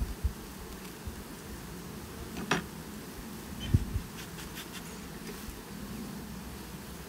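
Honeybees buzzing steadily around an opened hive during a tip test. A sharp knock comes about two and a half seconds in and a dull thump about a second later, followed by a few short hisses from a bee smoker being puffed.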